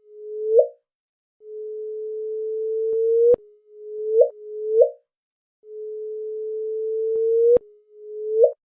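Sonified space radio signal: a pure electronic-sounding tone at one steady pitch, repeated six times. Each tone swells louder and then sweeps sharply upward at its end. Two of them are long and cut off with a click; the other four are short.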